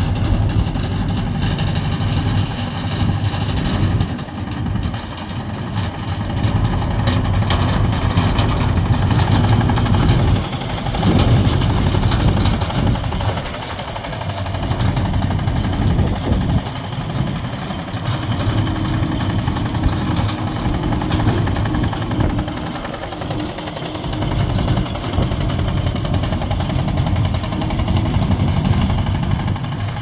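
Small concrete dumper's engine running with a steady clattering hum as the machine is driven around, the engine note rising and falling with short dips in revs several times.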